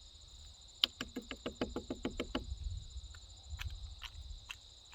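Crickets or other insects chirring steadily on two high tones. About a second in comes a quick run of about ten short pitched notes, roughly seven a second, followed later by a few faint clicks.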